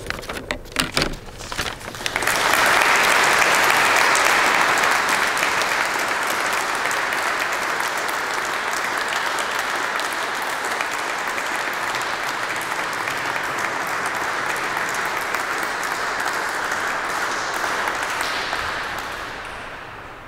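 Audience applause. A few scattered claps come first, then about two seconds in it swells into full, steady clapping that dies away near the end.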